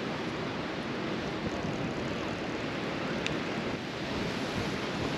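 Strong wind buffeting the microphone: a steady rushing noise.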